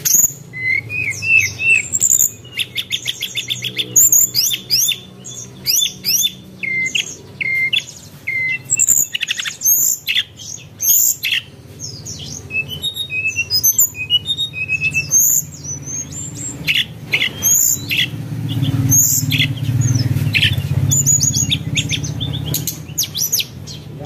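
Birds chirping: many short high calls and quick trills overlapping throughout, over a low steady hum that grows louder about three-quarters of the way through.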